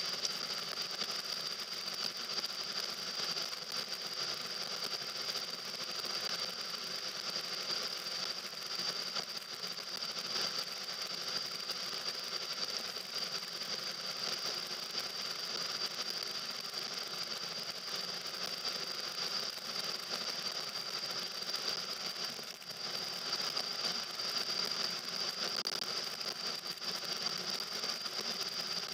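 Steady engine and road noise heard inside a moving car's cabin, with a steady high whine over it.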